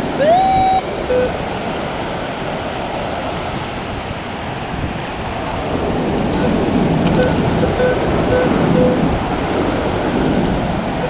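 Shallow surf washing steadily around the legs, swelling about six seconds in as a long-handled sand scoop digs and splashes in the water. A Minelab Equinox 800 metal detector gives one short low beep about a second in and a run of four short beeps near the end.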